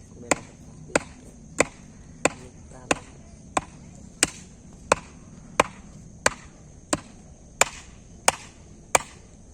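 A steady series of sharp, evenly spaced knocks, about three every two seconds, like chopping or striking wood.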